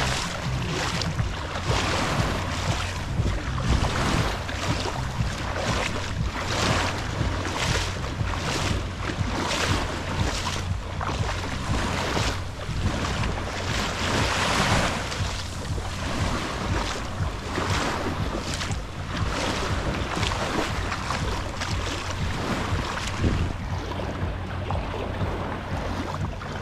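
Footsteps splashing through shallow seawater at walking pace, a swish a little under once a second. Wind rumbles steadily on the microphone underneath.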